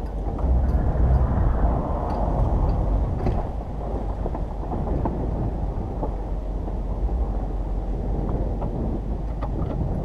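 A vehicle engine running under heavy wind buffeting the microphone, a dense steady rumble with a few faint clicks.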